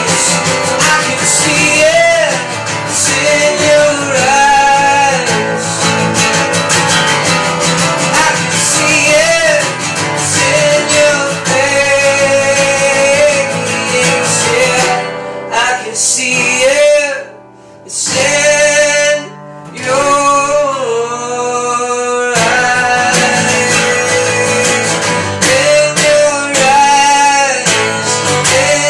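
Acoustic guitar strummed steadily with a man singing along. The music thins out and drops briefly about two thirds of the way through, then picks up again.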